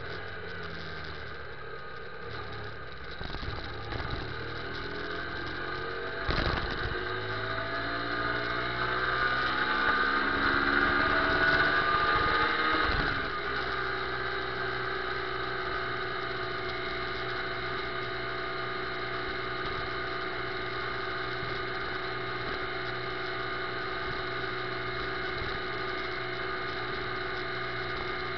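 Motorcycle engine on the move: a sharp clunk about a quarter of the way in, then the engine note climbs steadily as it accelerates. A second clunk about halfway through is followed by a steady engine note at cruising speed.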